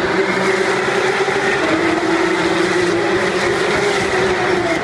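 Several Porsche 911 Cup race cars passing in a pack, their flat-six engines running hard in a loud, steady drone. The pitch sags a little midway and climbs again near the end.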